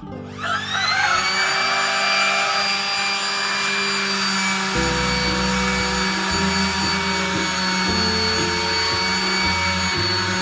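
Palm sander starting up with a rising whine that levels off within about a second, then running steadily as it is pressed against body filler on a car door panel.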